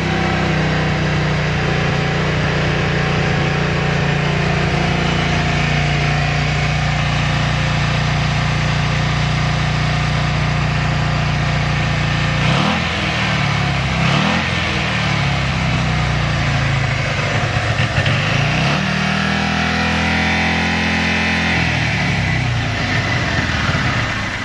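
Kawasaki Vulcan 400 Drifter's V-twin engine idling steadily, then revved: two quick throttle blips about halfway through and a longer rise and fall in revs near the end. The idle holds stable with no abnormal noise.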